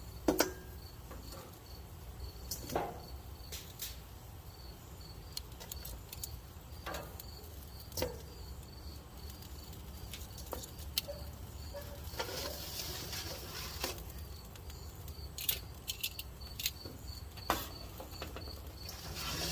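Crickets chirping steadily outdoors, a high, evenly repeated chirp a few times a second, with scattered sharp clicks and knocks over it.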